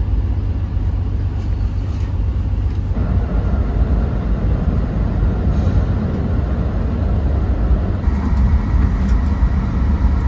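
Steady low rumble and hum inside a train carriage, with no speech.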